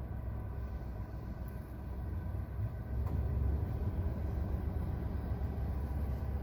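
Low, steady noise inside a 2023 Perodua Axia's cabin. It is the very loud noise the owner hears when the air-conditioning compressor stops. It grows louder about three seconds in, with faint steady tones above it.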